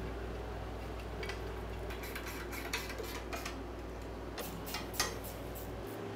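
Scattered light metal clicks and taps from hand tools and an aluminium installation fixture being fitted to the rear cover of a cast-iron LS engine block, a few sharper clicks near the end.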